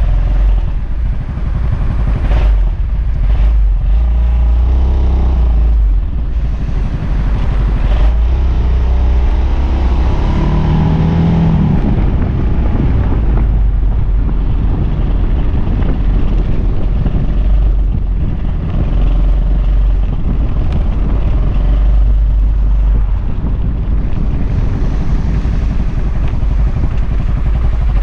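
Suzuki Burgman AN400 maxi-scooter riding slowly through town, its single-cylinder engine running under a heavy low rumble of wind on the microphone and tyres on cobblestones.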